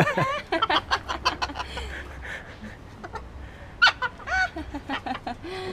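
A bird calling in a quick run of short chirps and squawks. The calls thin out midway and pick up again near the end with a few longer calls that bend in pitch.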